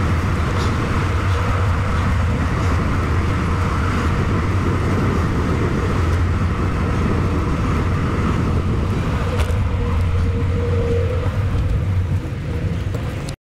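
Steady wind rumble on the microphone and tyre noise from a bicycle rolling along a paved path. The sound dips slightly shortly before the end, then cuts off abruptly.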